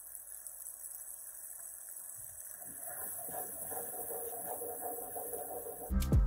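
Hot caramelised sugar hissing and bubbling in a non-stick frying pan as heavy cream is poured in. From about two and a half seconds in it crackles and bubbles louder as a wooden spoon stirs the mixture. Music comes back in near the end.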